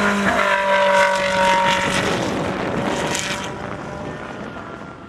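Ferrari 458 Challenge race car's 4.5-litre V8 driving past on the track. Its note is loudest about a second in, then falls in pitch and fades as the car goes away.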